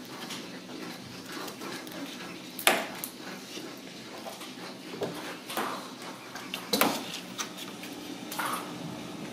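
Irregular knocks and clicks as Ragdoll kittens bat a hanging ball toy and scramble against wooden cabinet doors. The two loudest knocks come about a quarter and three quarters of the way through.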